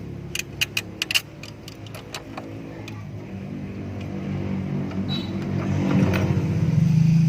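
Nissan Serena engine running, with a quick series of sharp metallic clicks in the first second or so; the engine gets louder from about halfway and runs steadily near the end.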